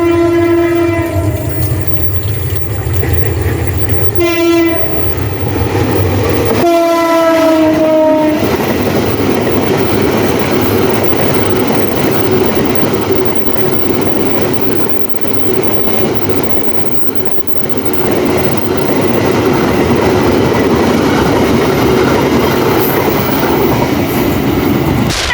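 Train horn sounding three blasts in the first eight seconds, the last one longer and sliding slightly down in pitch. Then a passing train's steady rumble and rattle.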